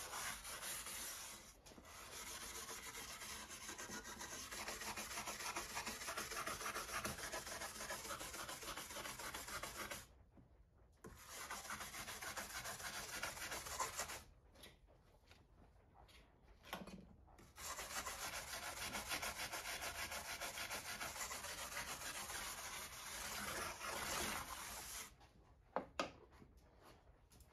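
Abrasive scrubbing by hand along the rusty steel blade of an antique crosscut saw, taking off the rust. It goes on in long stretches, stops briefly about ten seconds in and again around fourteen seconds, and ends a few seconds before the close, where two light clicks follow.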